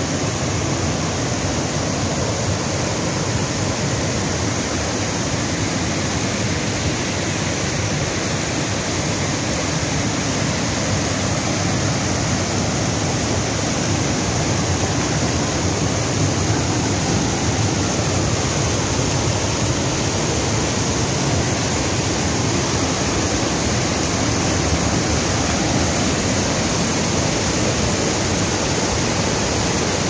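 Whitewater of a mountain river cascading over rock boulders in a series of small falls: a loud, steady rush of falling water, a little louder in the second half.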